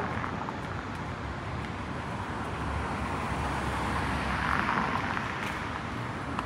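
City street traffic noise, with a car passing close by, swelling and fading about halfway through.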